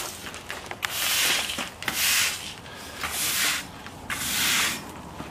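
Push broom sweeping grit and debris across a concrete floor, a scratchy scrape with each stroke, about once a second.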